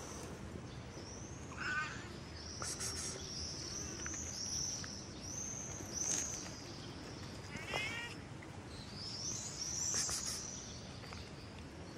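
Cat meowing briefly twice, about two seconds in and again near eight seconds, while a small bird repeats a high, thin note over and over in the background.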